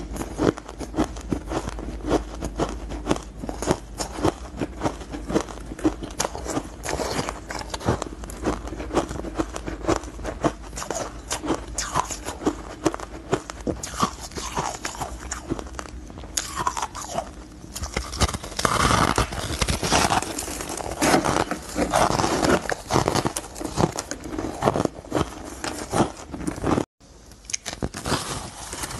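Close-up crunching of powdery frozen ice being bitten and chewed, a dense run of crisp crunches that grows louder and thicker in the second half and breaks off for an instant near the end.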